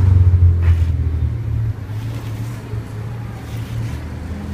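A motor vehicle passing on the road close by: a low engine and road rumble, loudest in the first second and easing off after.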